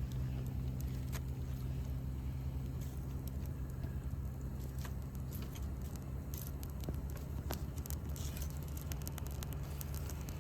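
Wood campfire crackling, with scattered sharp pops and ticks over a steady low hum.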